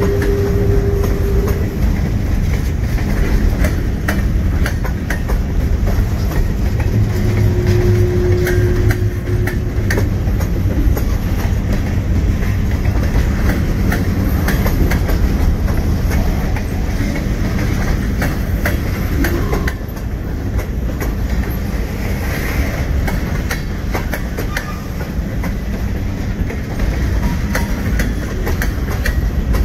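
Union Pacific freight train's cars rolling past, with a steady rumble and steel wheels clicking over the rail joints.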